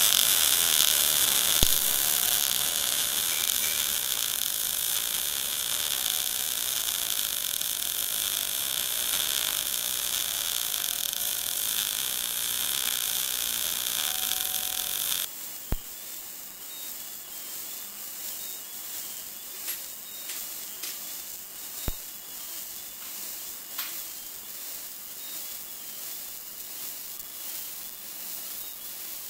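MIG welding arc hissing and sizzling steadily as the torch runs a weld on steel plate. About halfway through it drops suddenly to a quieter hiss, with a few sharp pops of spatter.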